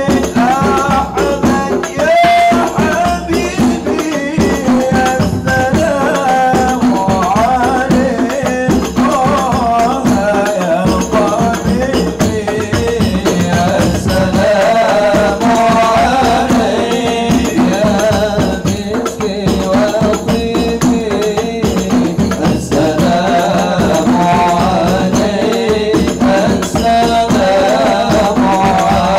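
Hadroh ensemble playing: rebana frame drums and hand percussion keep a steady, busy rhythm under a wavering melody.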